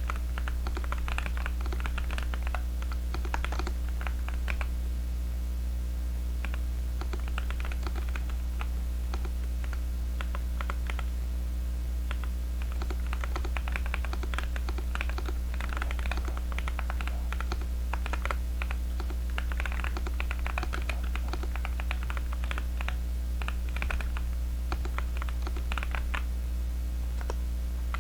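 Typing on a custom Meletrix Zoom75 mechanical keyboard fitted with Kailh Heavy Burnt Orange tactile switches and full foam: quick runs of key clacks in bursts of a few seconds with short pauses between them. A steady low hum runs underneath throughout.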